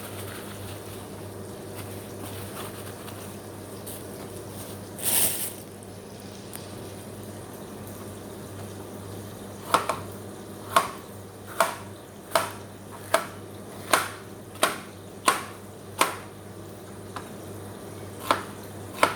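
A kitchen knife chopping vegetables on a cutting board: about a dozen slow, even strokes, roughly one every 0.7 seconds, starting about ten seconds in. Before that there is a brief hiss about five seconds in, over a steady low hum.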